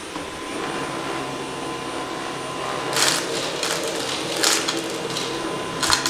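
Dyson V11 cordless stick vacuum with its High Torque cleaner head running on a hardwood floor, a steady whine with rushing air. From about three seconds in come sharp, irregular clicks and rattles as pieces of chunky cat litter are sucked up.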